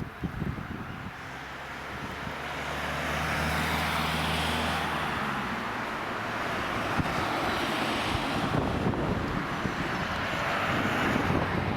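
A steady, low engine hum that fades after about five seconds, under wind noise on the microphone.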